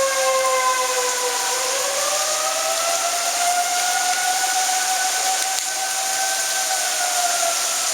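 Several outdoor tornado warning sirens wailing together at different pitches, sounding a tornado warning. Their tones sag slowly, then rise and hold, over a steady hiss.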